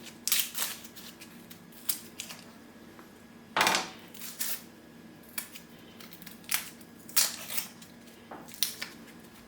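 Hands and a knife working a halved red onion on a board: scattered short scrapes, taps and crackles as the papery skin is peeled off, with one longer crackling scrape about three and a half seconds in.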